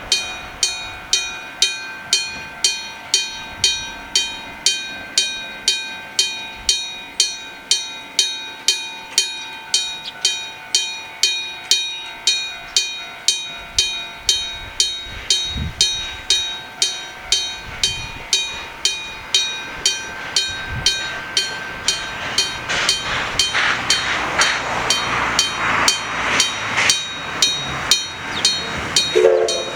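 Electric bell of an old-style railway level crossing ringing, its clapper striking the bell about twice a second with a bright metallic ring. From about two-thirds of the way in, the rising rumble of an approaching train grows under the bell.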